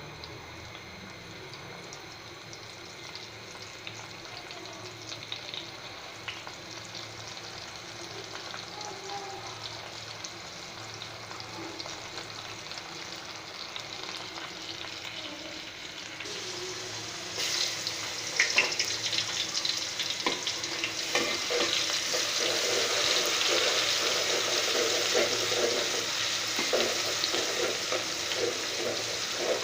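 Food frying in hot oil in a pan with the clatter of stirring. The sizzle is faint at first, then about 17 seconds in it jumps much louder and more crackly and stays so.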